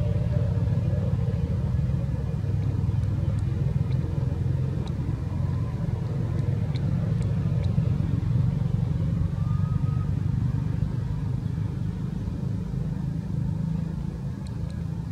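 A steady low rumble, with faint short high chirps scattered through it and one brief rising squeak about two-thirds of the way in.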